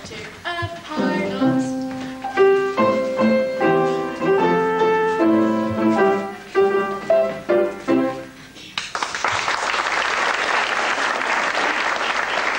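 Piano playing a stage musical number, with steady held notes and chords, which ends about nine seconds in; audience applause then breaks out and continues.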